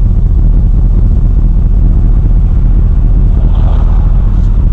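Steady low rumble in the cabin of a 1996 Buick Roadmaster idling at a stop, from its LT1 V8.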